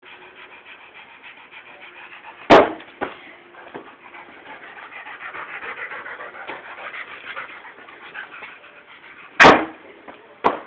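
A dog panting rapidly and steadily, with two loud thumps about seven seconds apart and a few fainter knocks.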